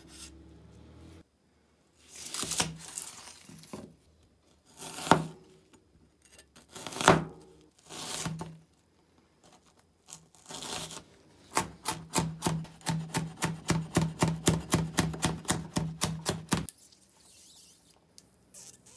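Restored antique cleaver cutting lemon and red onion on a plastic cutting board: five separate cuts, then a fast run of chopping strokes, about six a second, that stops a couple of seconds before the end.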